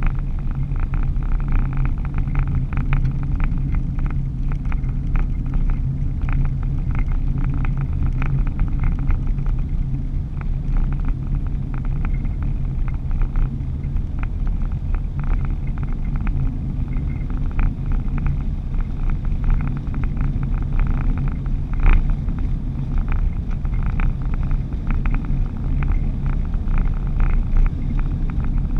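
Cabin noise of a vehicle driving along a paved highway: a steady low engine and road hum, with many small ticks and rattles, and one sharper click about 22 seconds in.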